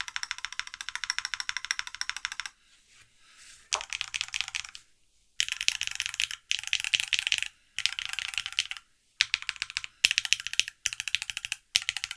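TGR Tomo mechanical keyboard fitted with NovelKeys x Alexotos Granite linear switches being typed on quickly. A run of about two and a half seconds comes first, then, after a pause of about a second, a string of shorter bursts of about a second each with brief gaps between.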